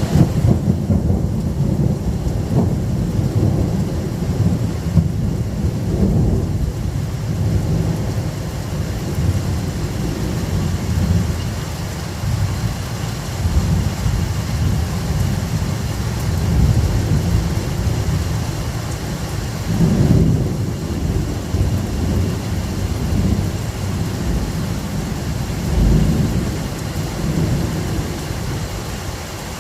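Thunder rumbling and rolling continuously, deep and low, swelling louder several times, with the biggest rolls about 20 and 26 seconds in.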